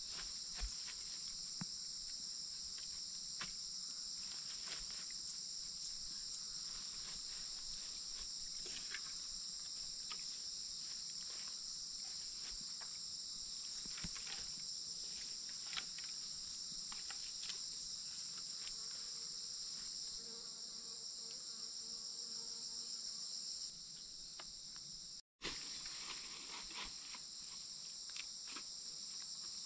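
Steady high-pitched insect chorus buzzing without a break, with scattered light clicks and rustles as sticks and bamboo are handled in the grass. The sound drops out for an instant about 25 seconds in.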